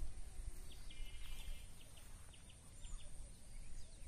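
Small birds chirping over quiet outdoor ambience: a quick run of short chirps in the first half, then a few thin, high falling calls near the end, over a faint low rumble.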